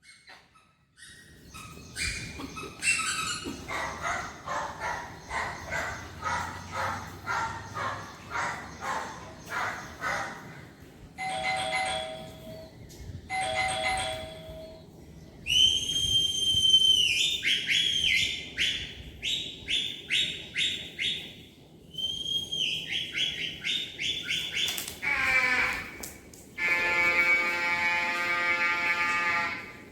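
A series of odd electronic sound effects: about two chirping pulses a second for several seconds, then two short pitched blasts, a run of high whistling beeps, a falling glide, and a steady buzzy tone held for about three seconds near the end.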